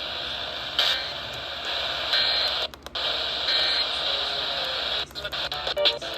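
Radio receiver static: a steady hiss that drops out briefly about three seconds in, then breaks up into choppy crackle with snatches of tone near the end.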